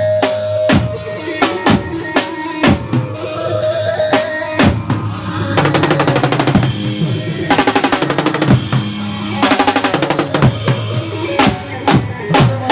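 Drum kit played for halay dance music: steady kick and snare strokes, with three quick snare rolls in the second half, over a sustained melody line.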